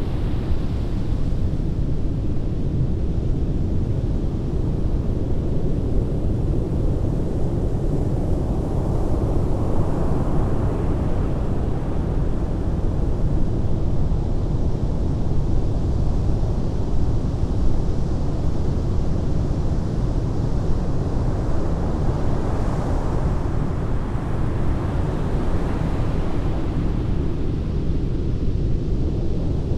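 Heavy ocean surf with a steady low rumble, the wash of breaking waves swelling up about ten seconds in and again near the end.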